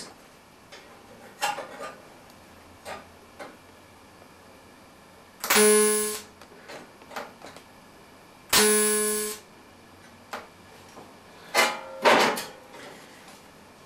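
Two short TIG tack welds on stainless steel, each a buzzing arc of under a second that starts and stops abruptly, a few seconds apart. Light metal clinks and taps from handling the pieces come in between.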